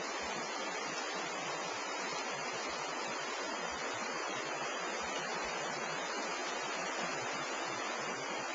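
Flowing stream water rushing steadily, with an even wash of sound that does not change.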